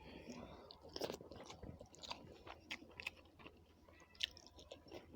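Faint, close-up chewing and mouth smacks of a person eating a rice-and-curry meal, with irregular soft clicks.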